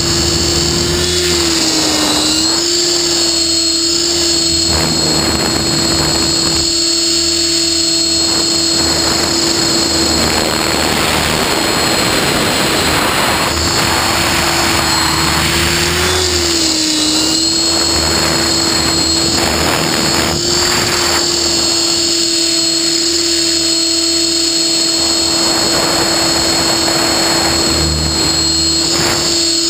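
Align T-Rex 600E Pro electric RC helicopter heard from a camera mounted on it: a steady high whine from its electric motor and gears under the rotor's running note, which dips briefly twice. The rush of the rotor blades swells and fades several times as the helicopter flips and rolls.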